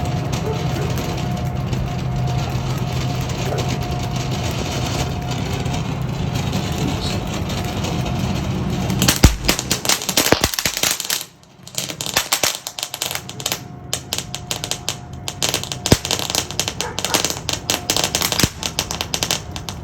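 Consumer firework fountain burning: a steady rush of noise, then about nine seconds in it breaks into dense, rapid crackling pops that keep on until near the end.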